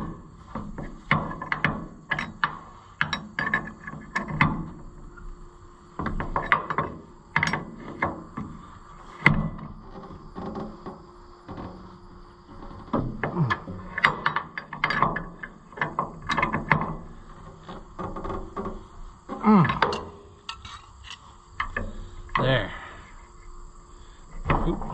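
Wrench clinking and scraping on steel hydraulic hose fittings as they are tightened at the remote couplers, in an irregular run of metallic clicks and taps.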